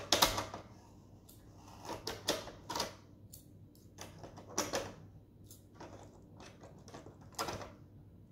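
Scissors snipping and clicking at plastic toy packaging: a run of irregular sharp snips, the loudest right at the start.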